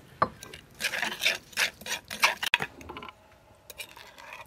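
Metal spoon stirring and scraping chili sauce ingredients around a clay mortar: a click, then a quick run of scraping strokes that dies down near the end.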